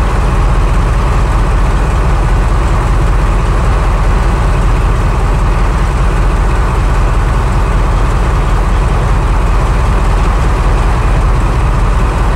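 Class 35 Hymek diesel-hydraulic locomotive's Maybach engine running steadily and loud while the locomotive stands still, a deep even drone.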